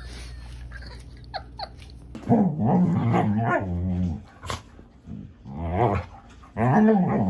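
A dog play-growling while wrestling with another dog: long, wavering growls that start about two seconds in and come twice more towards the end.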